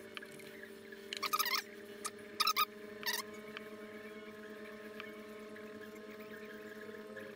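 Steady electrical hum from a wood-burning pen's power unit while the hot tip is worked over the pine, with three short squeaky chirps between about one and three seconds in.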